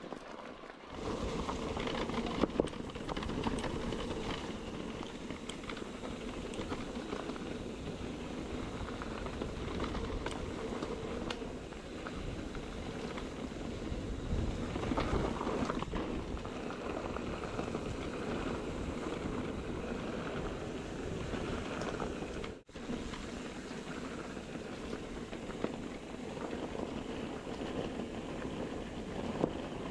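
Mountain bike riding over a rough dirt and stone trail: steady rushing tyre noise with the clatter and rattle of the bike over the bumps. The sound breaks off for a moment about three-quarters of the way through, then carries on.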